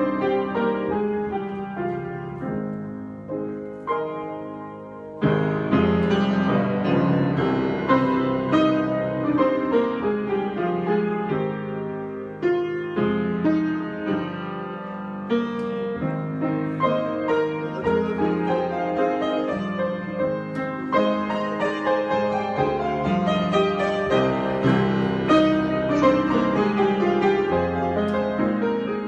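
Solo piano improvisation, played freely with a quieter, sparser passage that builds to fuller chords about five seconds in.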